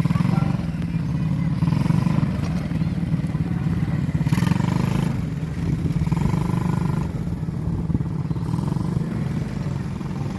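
Small ATV engine running steadily.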